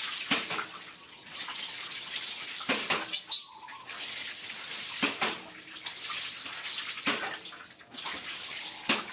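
Water poured repeatedly from a plastic dipper over a baby monkey, splashing onto a plastic stool and wet concrete, with a fresh pour about every two seconds.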